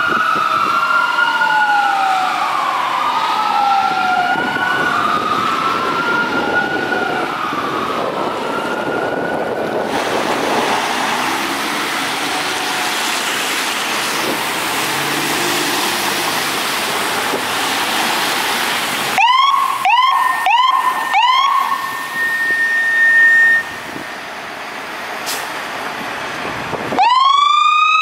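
Fire apparatus sirens: two electronic sirens wailing out of step, sweeping up and down, for about the first ten seconds. After a stretch of steady noise, a Federal Q2B mechanical siren is blipped four times in short rising bursts. About a second before the end it winds up again into a long rising tone.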